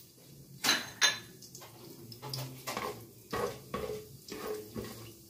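A spatula knocking and scraping against a nonstick cooking pot while stirring whole spices in oil. There are two sharp knocks about a second in, then a string of shorter scraping strokes.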